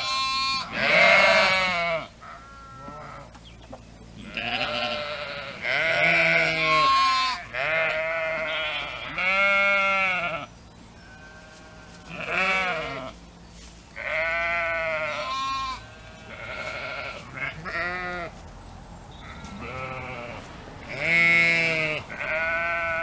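Sheep bleating: about a dozen separate quavering calls, some deeper and some higher-pitched, with short pauses between them.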